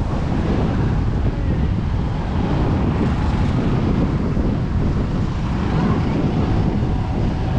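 Wind buffeting the microphone in a steady low rumble, over the wash of surf on the beach.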